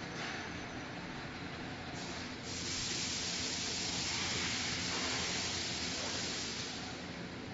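Industrial sausage link-cutting machine running with a steady hum. A loud, even hiss comes in about two and a half seconds in and fades away near the end.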